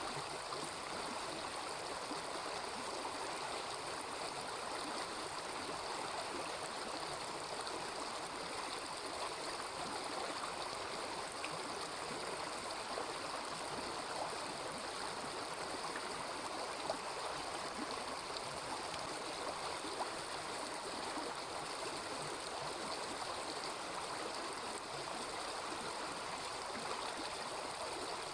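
A small river babbling steadily. A few faint pops sound here and there, the clearest about two-thirds of the way through.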